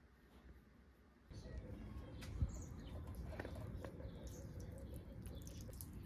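Outdoor morning ambience: small birds chirping over a low steady rumble, starting about a second in after near quiet. A single sharp knock comes about two and a half seconds in.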